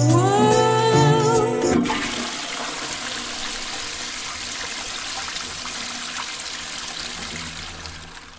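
A song's last sung note glides upward and ends about two seconds in. A toilet then flushes, a rush of water that fades out near the end.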